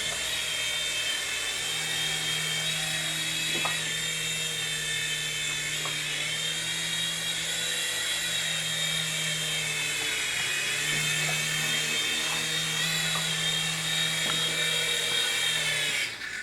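ToyJoy M302 4-channel toy RC helicopter hovering: its small electric motors and rotors give a steady high whine that wavers slightly in pitch. The whine cuts off suddenly near the end.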